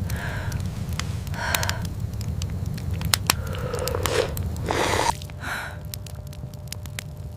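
A steady low rumble with frequent sharp crackles and clicks, and a few short, soft sounds a second or so apart.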